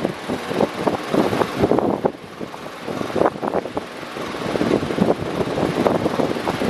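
Electric fan running, a rush of moving air that wavers in strength, dipping about two seconds in and then building back up.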